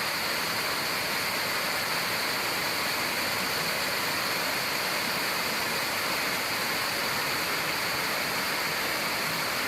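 Waterfall rushing, a steady even hiss of falling water with no breaks.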